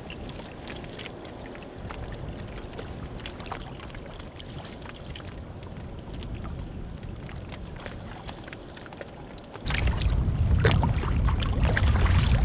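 Water sounds around a canoe: lapping with many small splashes and drips. About ten seconds in, a much louder low rumble sets in suddenly.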